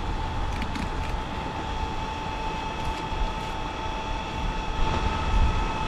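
Steady low rumble with a constant mid-pitched hum, as from a motor running nearby, and a few faint ticks.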